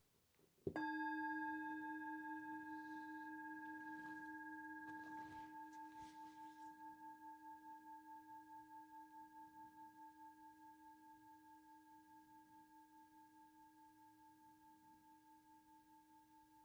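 A singing bowl struck once, under a second in, ringing on with a low tone and higher overtones that pulse in a slow wobble and fade gradually.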